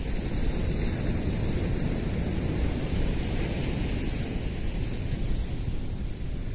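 Steady wind noise buffeting the microphone, a low even hiss without any clear engine note; a few faint high chirps come in during the second half.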